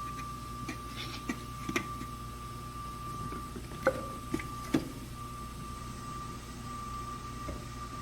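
Steady high whistle of air leaking from a compressed-air hose, with a few sharp clicks and knocks of hands working at a spark plug wire boot.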